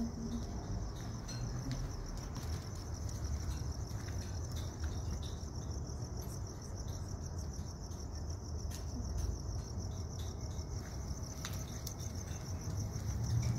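Crickets chirping in a steady, high, continuous trill, over a low background rumble.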